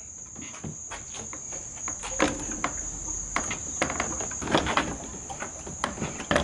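Crickets trilling steadily, with a scatter of knocks, clunks and rubbing as the 3-horsepower Evinrude outboard is swung side to side on its mount to check that its lower unit clears the notched keel.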